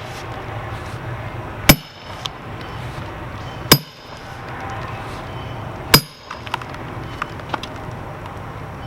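A sledgehammer striking a steel splitting wedge driven into a large red oak log: three hard metallic blows about two seconds apart, each ringing briefly.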